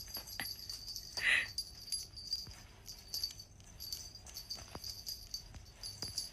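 Small bells on a cat teaser wand jingling and clicking as the toy is shaken over a kitten, with a short mew from the kitten about a second in.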